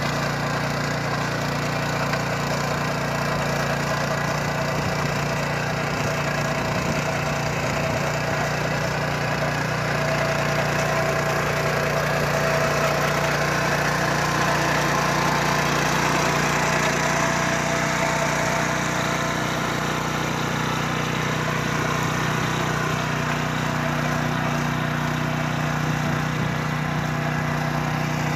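The 9 HP single-cylinder four-stroke air-cooled petrol engine of an RI 740 power weeder running steadily while its rotary tines till hard soil.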